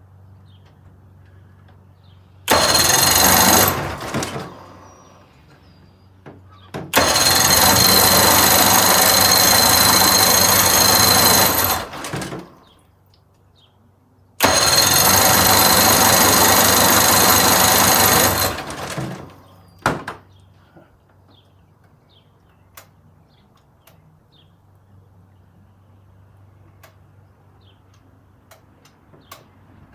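1980 Chrysler 45 hp outboard motor cranking three times, for about two, five and four seconds, without catching, with one brief burst after. This is a crank-no-start: the engine has spark, and a plugged carburettor or stale fuel is suspected.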